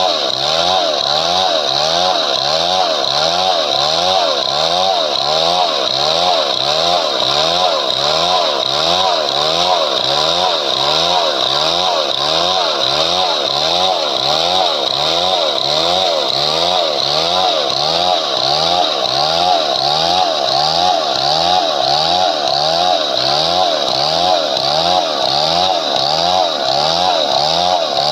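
Chainsaw running at high speed and cutting wood, likely a padauk log, with its pitch rising and falling in a steady, regular cycle.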